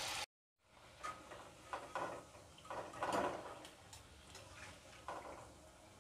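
The steady sizzle of deep-frying cuts off abruptly at the very start. Then come light metal clinks and scrapes of a wire-mesh skimmer and spoon against an iron kadai as fried gulgule are lifted out of the oil.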